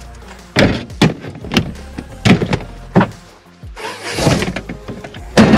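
Background music with a beat and bass line, over several sharp thumps and knocks as gear is loaded into a pickup truck.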